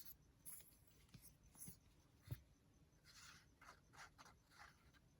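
Faint handling of paper and craft pieces on a work table: soft rustles and scratches, with one soft knock a little over two seconds in and a few quick rustles near the end.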